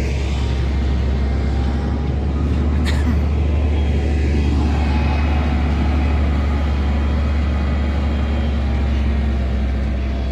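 Concrete mixer truck's diesel engine running with a steady low drone as the truck pulls up to the concrete pump, with one sharp click about three seconds in.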